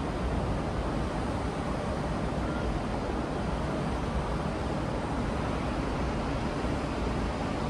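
Steady, unbroken rush of distant ocean surf heard from a balcony, with a low wind rumble on the microphone.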